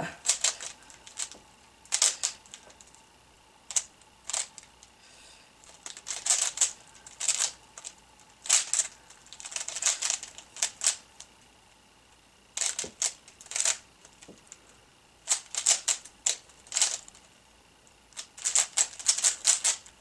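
Plastic Rubik's cube being turned fast in a speed-solve: bursts of quick clacking clicks as the layers snap round, broken by short pauses.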